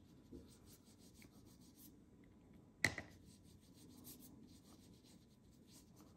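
Faint, soft scratching of a water brush's bristles stroked back and forth across cardstock, laying on watercolor. One sharp tap about three seconds in.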